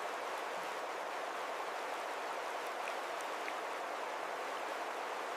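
Steady hiss of running water, like a flowing river, with a few faint ticks and no change throughout.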